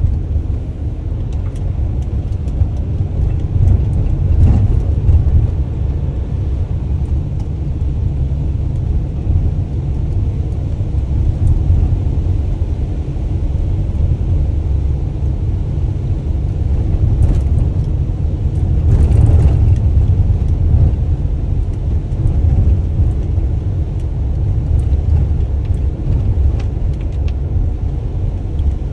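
Delivery van on the move: a steady, low engine and road rumble, with a brief swell of louder noise about two-thirds of the way through.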